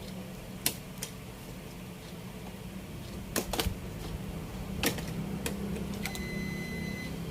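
Scattered sharp clicks and knocks of hands and tools working on a TV's power supply board, over a steady low hum, with a steady high-pitched electronic beep of about a second near the end.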